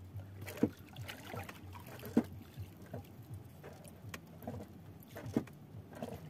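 Small wooden outrigger canoe on the sea: water lapping at the hull, with irregular short knocks every second or two as a handline is worked over the side.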